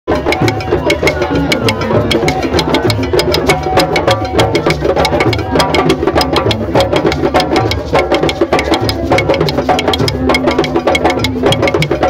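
Drum circle: many drums played together in a fast, steady rhythm, sharp stick strikes on drums over deep drum beats.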